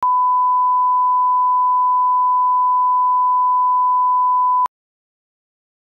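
1 kHz line-up tone that goes with SMPTE colour bars on a tape leader, marking the reference level for alignment. One steady, unwavering beep that cuts off suddenly about four and a half seconds in.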